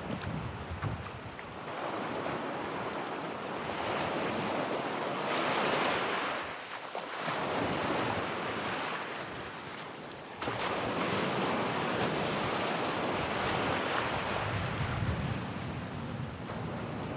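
Surf breaking and washing up on a sandy beach, mixed with wind buffeting the microphone. The noise swells and eases in slow surges, and the level jumps suddenly about ten seconds in.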